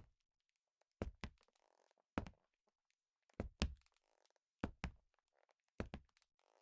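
Leather-soled shoes walking slowly on a wooden floor: five steps, about one every 1.2 seconds, each a heel strike followed closely by the sole.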